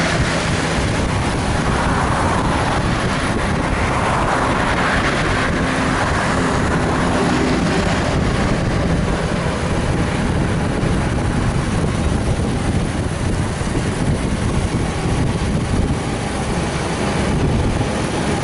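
Motorcycle engines running steadily at highway speed, under a constant rush of road and wind noise.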